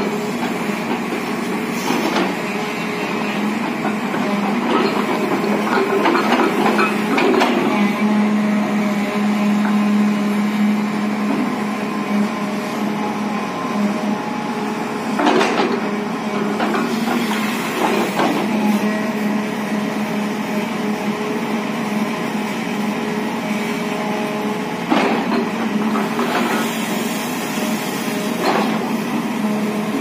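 Hydraulic rock breaker on a JCB JS215 tracked excavator hammering into rock as a rapid, continuous rattle, with the machine's engine humming steadily beneath it. Louder sharp cracks come every few seconds.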